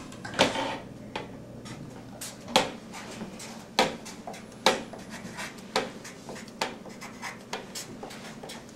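Felt-tip marker writing on paper on a clipboard: a run of short, separate pen strokes at an uneven pace.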